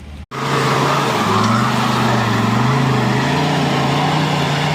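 Mercedes OM602 five-cylinder diesel in an off-road Rexton running under load, its pitch climbing slowly. The sound starts abruptly a moment in, after a brief dropout.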